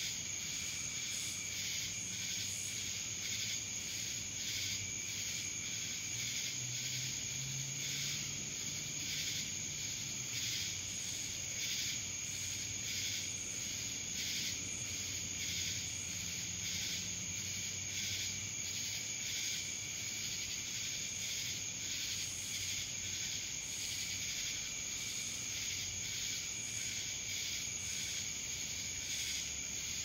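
Chorus of singing insects, which the uploader calls cicadas: a continuous high-pitched trill with a steady, rhythmic pulsing over it.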